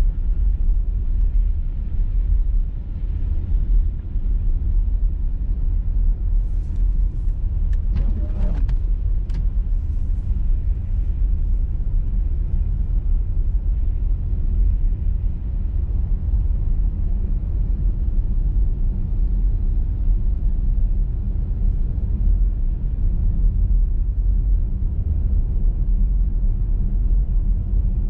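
Car driving at road speed on a snowy motorway: a steady low rumble of engine and tyre noise, with a few faint clicks about eight to nine seconds in.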